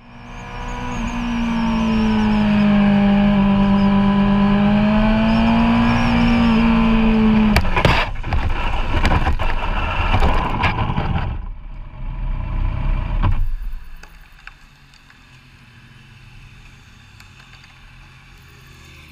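Motorcycle engine running at steady speed with wind noise, cutting out abruptly about eight seconds in. A burst of knocks and scraping follows as the bike goes down on the asphalt and slides, dying away a few seconds later into a low, quiet rumble.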